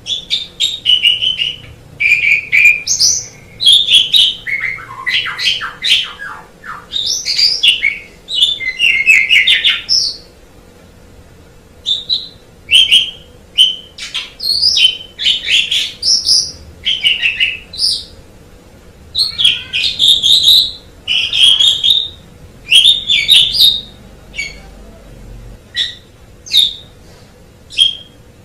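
Asian pied starling (jalak suren) singing: loud phrases of varied whistles, chatters and harsh rasping notes, separated by short pauses.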